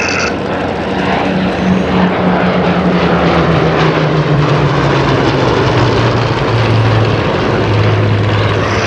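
A pair of Hawker Hurricanes' Rolls-Royce Merlin V12 piston engines running in a formation pass overhead, a loud propeller-aircraft drone whose note falls steadily in pitch over several seconds.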